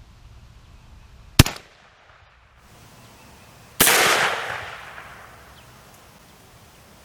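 Rossi Tuffy .410 shotgun being fired outdoors: a sharp crack about a second and a half in, then about two and a half seconds later a second bang that rings out and echoes away over about two seconds.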